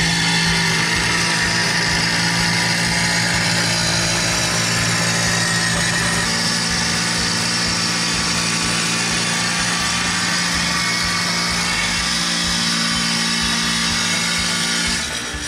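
Wet tile saw running steadily as a long strip of tile is fed through the blade, a constant motor hum with a hissing cut; the motor winds down right at the end.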